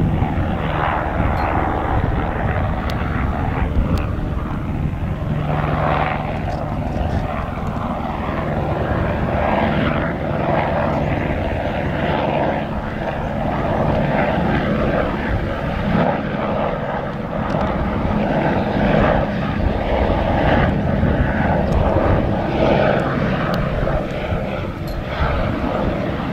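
AS350 Squirrel-type single-engine light helicopter flying past: a steady turbine-and-rotor drone with low engine tones, getting a little louder past the middle.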